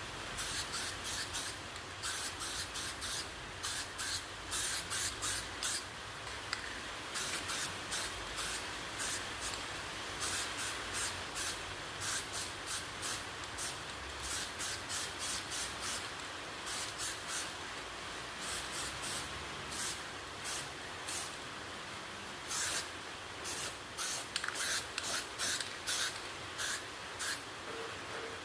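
Hand sanding of a plastic motorcycle side fairing panel: quick back-and-forth scratchy strokes, several a second, in irregular runs over a steady hiss.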